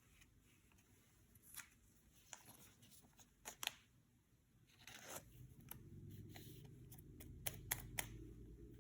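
Faint handling of Yu-Gi-Oh trading cards: scattered light flicks and rustles, with a quick run of sharper snaps near the end. A low hum comes in about halfway.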